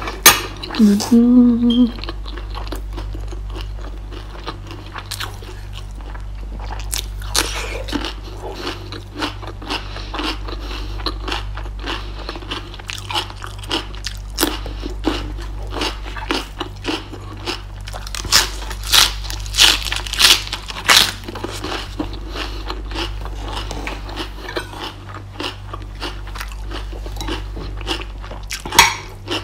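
Close-miked crunching and chewing as a person eats, with crisp bites into raw green vegetable; a short hummed vocal sound about a second in.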